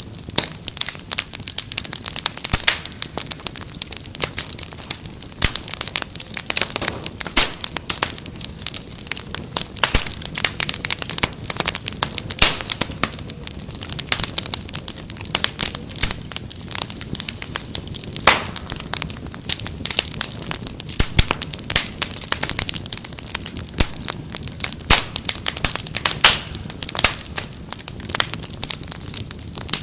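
Wood fire crackling steadily, with many irregular sharp pops and snaps over a low rushing rumble of the flames.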